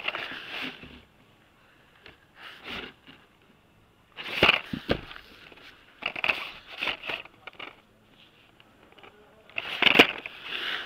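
Blister-carded Hot Wheels packages, plastic bubbles on cardboard backs, rattling and clacking against one another as fingers flip through them in a cardboard box. The sound comes in several short bursts with quiet gaps between them, and the loudest burst is near the end.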